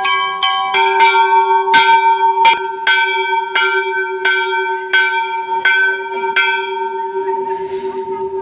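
Large brass temple bells hanging at a Hindu temple entrance, struck repeatedly by hand, about two strokes a second. Several bells of different pitch sound together and their ringing overlaps. The strokes stop about seven seconds in while the bells keep ringing.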